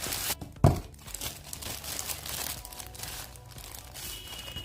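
Packaging crinkling and rustling as a selfie-stick tripod is unboxed, with one sharp thump under a second in.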